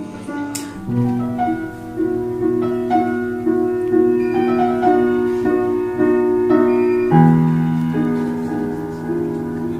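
Piano music: a slow melody of struck notes over held chords, with a chord change about seven seconds in.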